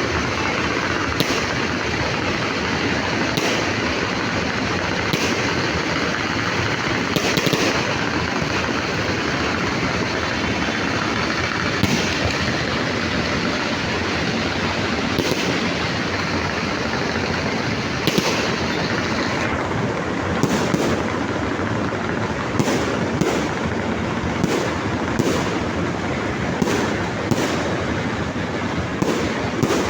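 Fireworks going off: a continuous dense crackle of many bursts, with sharp individual bangs popping through it, coming more often, about one a second, in the last third.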